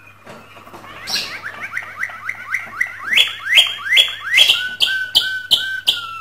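Male domestic canary in breeding condition singing its courtship song. A fast trill of short falling notes gives way to slower, louder falling notes about three a second, and the last phrase repeats notes over a steady whistle.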